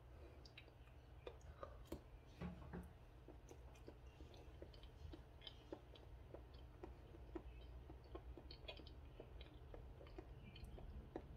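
Faint close-up chewing of a mouthful of banana: soft, irregular wet mouth clicks, several a second, over a low steady hum.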